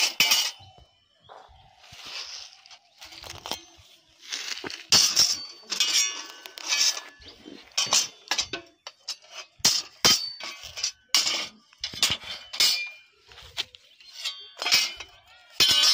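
Steel billhook blades with iron handles clinking and clanking against one another as they are handled and laid down: irregular metallic knocks, some followed by a brief ring.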